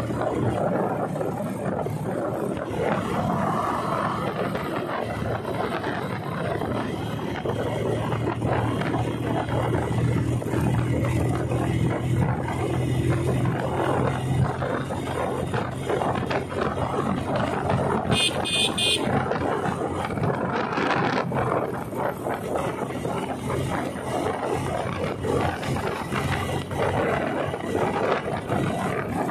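Motorcycle riding along a highway, its engine running steadily under wind and road noise. A short high-pitched beep sounds about 18 seconds in.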